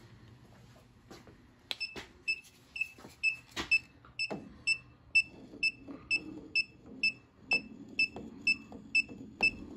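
Klein ET310 circuit breaker finder receiver beeping as it is swept across the breakers, searching for the circuit carrying the transmitter's signal. The short, high beeps start about two seconds in and repeat about four times a second, mixed with sharp clicks of the tool against the breakers.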